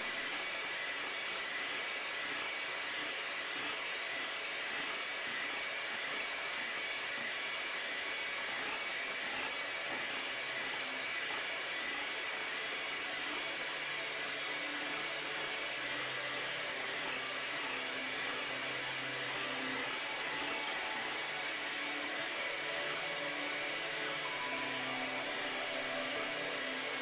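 Electric hand mixer running steadily at medium speed, its beaters whipping whole eggs and sugar into a pale foam for a genoise sponge.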